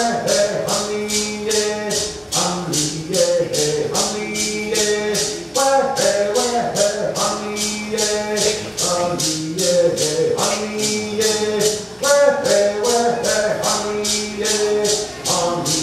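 Cherokee social dance song: voices singing over a steady shaken rattle beat, about two to three strokes a second.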